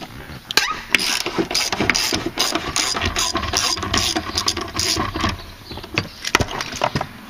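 Ratchet wrench with a 13 mm socket clicking in a quick, even rhythm, about three strokes a second, as it works a door hinge bolt. It stops about five seconds in, and a few scattered clicks follow.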